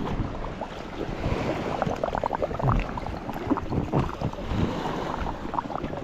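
Sea water splashing and sloshing close to the microphone, in many short irregular splashes over a steady wash.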